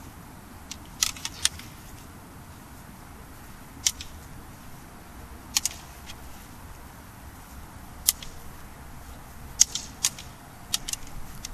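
Training jian (Chinese straight swords) clacking together in sparring: short, sharp clicks of blade on blade, three close together about a second in, single clicks and a pair through the middle, and a quick run of contacts near the end.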